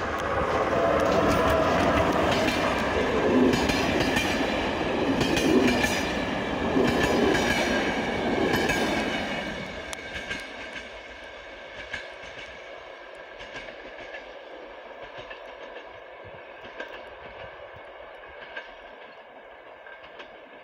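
BDZ series 45 (Skoda 68E) electric locomotive and its passenger coaches passing at speed, wheels clattering over the rail joints. About ten seconds in, the noise drops away as the train recedes, leaving faint scattered clicks.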